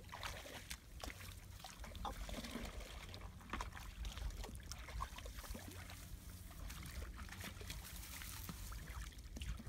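Water trickling and splashing, with many small scattered clicks and a steady low rumble underneath.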